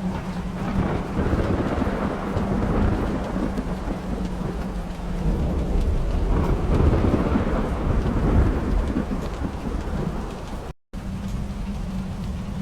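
Steady rain with rolling thunder rumbling underneath, swelling and easing, loudest past the middle. The sound cuts out completely for a split second near the end, then the rain resumes.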